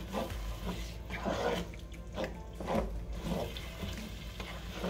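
Wooden spoon stirring a thick, wet mixture of ground meat, tomatoes and cheese soup in a metal pot, making squishing, scraping strokes a little under two a second.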